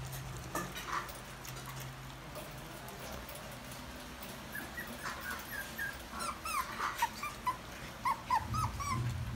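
Toy poodles whimpering and yipping: a run of short, high whining cries in the second half, many rising and falling in pitch, over a steady low hum.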